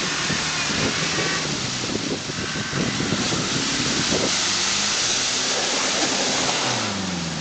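Land Rover Discovery engine working under load as the 4x4 drives through a muddy water-filled hole, over a constant rushing hiss of churned water and wind on the microphone. The revs drop near the end.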